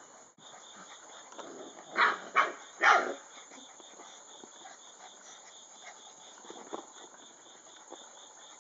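A mastiff barks three times in quick succession, short loud barks about half a second apart. Behind it, insects chirp steadily at about three or four chirps a second.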